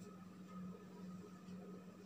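Faint marker writing on a whiteboard, over a steady low hum.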